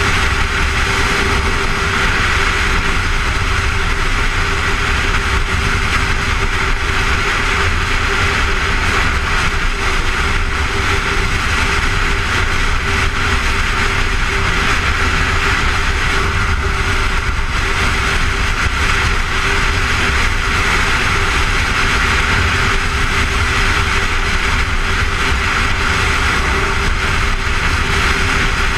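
Honda motorcycle running steadily at freeway cruising speed, its engine drone mixed with constant wind rush over the microphone and a low, steady hum.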